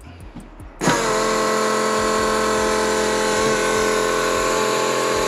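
Newly fitted AEM electric fuel pump priming with the ignition key on. A steady whine with several tones starts abruptly about a second in and holds an even pitch.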